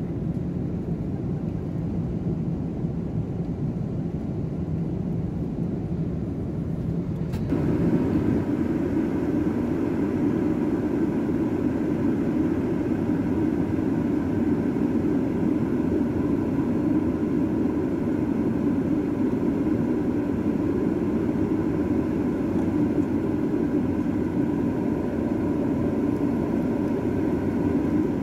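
Steady roar of jet engines and airflow inside an airliner cabin in cruise. About seven seconds in it cuts abruptly to a louder roar, pitched a little higher, with a faint steady hum in it.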